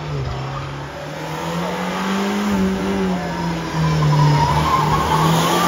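Competition car's engine revving hard on the climb, its pitch rising, dipping once a little past three seconds and rising again, growing louder as the car nears. Tyres squeal in the latter half as it slides through a bend.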